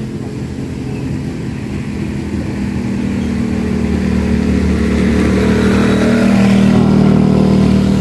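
A motor vehicle's engine running steadily, growing gradually louder and at its loudest a little before the end, as if the vehicle is drawing near.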